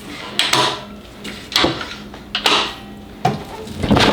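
Festool UG CSC SYS table saw stand's folding legs being swung up and latched: a handful of separate clunks and clicks a second or so apart.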